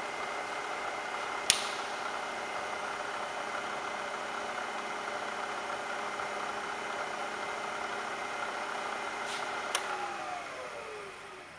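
Bridgeport Series I vertical mill's spindle motor and variable-speed head running with a steady whine, with a sharp click about a second and a half in. Near the end a click as the motor is switched off, and the whine falls in pitch as the spindle winds down.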